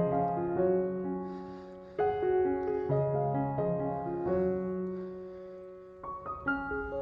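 Background music on piano: slow struck notes and chords, each left to ring and fade.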